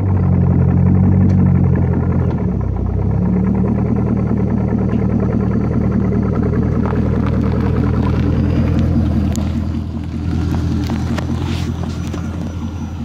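C5 Corvette's 5.7-litre V8 running through BBK mufflers, a steady deep exhaust rumble that dips slightly in loudness about ten seconds in.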